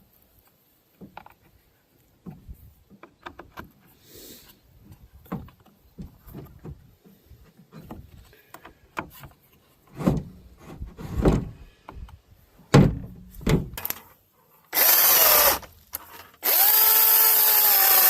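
Scattered knocks and clatter, then a battery-powered Milwaukee chainsaw runs in two spells: a short burst about 15 seconds in, and a longer run through the last couple of seconds.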